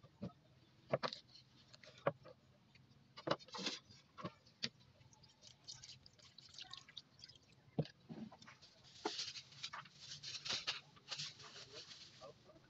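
Scattered sharp knocks as banana blossom pieces are cut on a wooden board and set into a steel basin. In the second half, water from a plastic bucket is poured into the basin, splashing over the pieces.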